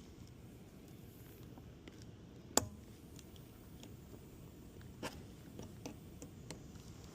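Hand tools clicking against a car tire while prying a nail out of the tread: one sharp click about two and a half seconds in, then a few fainter clicks and taps.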